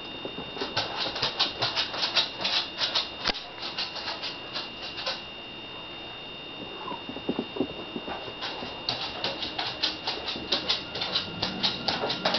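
Rapid rattling clicks, several a second, from a toy stuck on a frightened cat's tail as the cat spins and runs about. The clicking stops for a few seconds midway while the cat sits still, then starts again.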